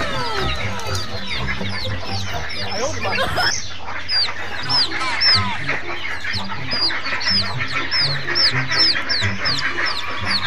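A flock of young chicks peeping: many short, high-pitched chirps, several a second, overlapping without a break, over background music.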